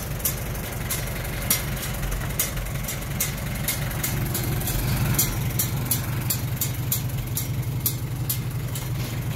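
1941 Farmall M's four-cylinder engine idling steadily, with faint regular ticks about two a second over the top.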